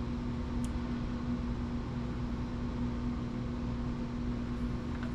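Steady mechanical hum with a constant low tone, like a fan or air conditioner running in the room, with a tiny tick about half a second in.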